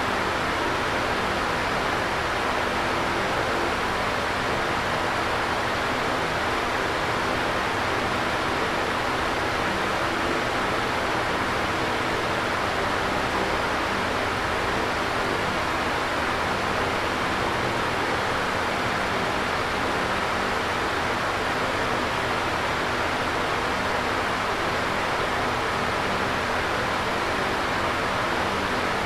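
Electric fan running steadily: an even rush of air with a faint steady hum beneath it.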